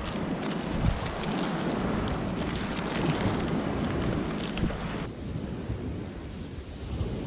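Wind buffeting the microphone outdoors: a steady rushing noise with low rumbling gusts. About five seconds in the sound changes abruptly and the high hiss drops away.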